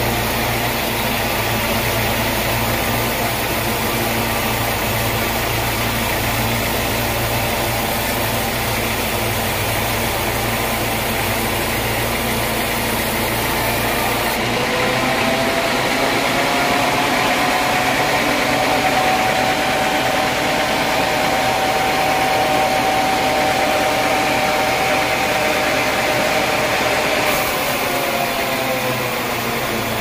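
Band sawmill running, its band blade cutting lengthwise through a large squared timber with a steady mechanical drone and hiss. About halfway through a high whine comes in, holds steady, and slides down in pitch near the end.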